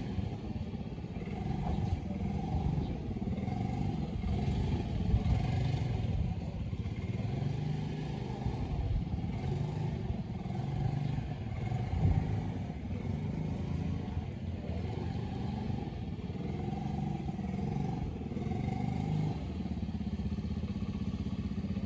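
Small automatic motor scooter's engine running at low speed, its pitch rising and falling as the rider eases the throttle on and off through tight turns.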